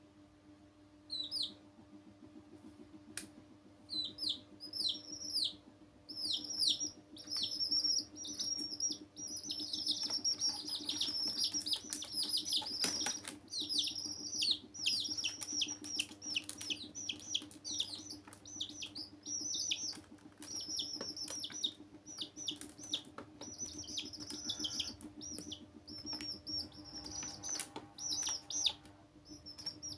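Baby chicks peeping: quick high calls, each falling in pitch, a few scattered ones at first and then nearly continuous, over a faint steady hum.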